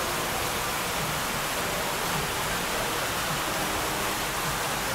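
Steady rush of splashing water from an indoor fountain and water wall.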